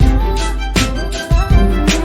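Background music with a heavy bass and a steady beat of sharp drum hits.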